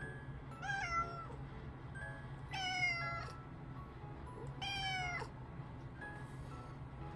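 Brown tabby cat meowing three times, about two seconds apart, each meow roughly half a second long and dropping in pitch at the end. Soft background music underneath.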